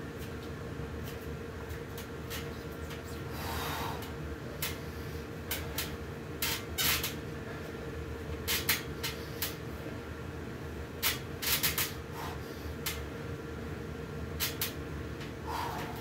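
Sharp clicks and knocks in irregular clusters from a free-standing metal pull-up tower's frame and bar as a man works through a set of pull-ups, over a steady low hum.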